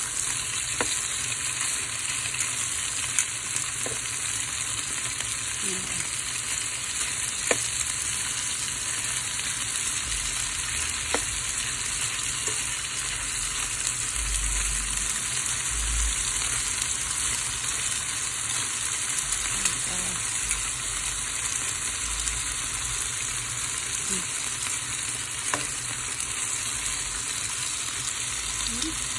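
Pork pieces and beef slices sizzling steadily in a hot frying pan, with a few light clicks as metal tongs turn the meat against the pan.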